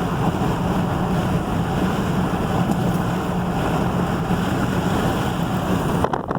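Steady road and engine noise of a vehicle driving, with a low drone. Near the end the sound changes abruptly to irregular, gusty wind buffeting on the microphone.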